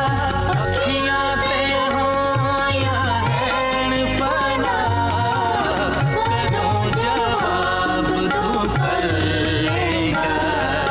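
Music from a Punjabi worship song: an instrumental passage with a melodic lead line over a steady drum beat.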